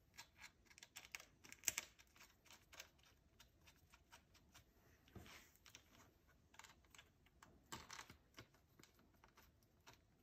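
Faint, irregular clicks and taps of a screwdriver and small metal parts being handled while a bracket is screwed onto a Stihl FS81 trimmer with T27 Torx screws, with a sharper click about two seconds in.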